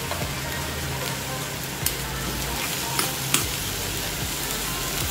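Chopped vegetables with freshly added grated carrot frying in hot oil in a pan, a steady sizzle, with a spatula stirring them and clicking against the pan a few times.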